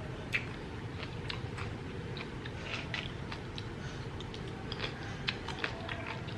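Chewing food close to the microphone: irregular small clicks and crunches over a steady low hum.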